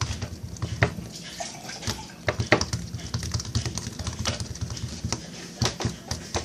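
Homemade slime being squeezed and worked in the hands, making irregular wet clicks and squelches. A steady low hum runs underneath.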